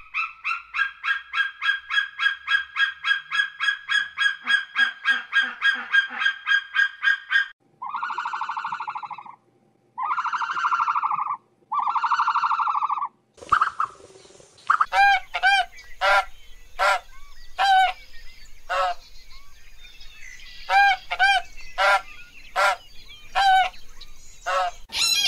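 Animal calls in three runs, with abrupt cuts between them: first a fast series of short calls at about four a second, then three long, drawn-out calls, then sharp, clipped calls repeated at uneven intervals.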